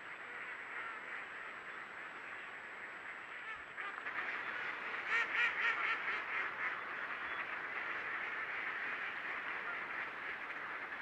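A large flock of ducks quacking and chattering all together. The chorus gets louder about four seconds in, with a run of closer, louder quacks just after.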